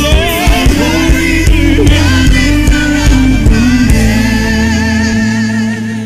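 Gospel worship music with singing over a band with a steady beat, settling about four seconds in into a long held chord.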